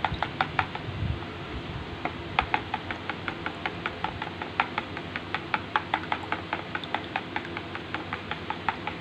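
Metal spoon beating egg yolks and oil in a plastic bowl, clicking against the bowl in a quick, steady rhythm of about four to five strokes a second.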